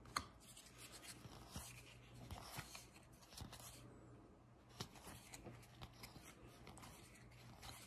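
Faint soft rustling and small ticks of Upper Deck MVP hockey trading cards being slid and flicked through by hand, with a few slightly sharper clicks.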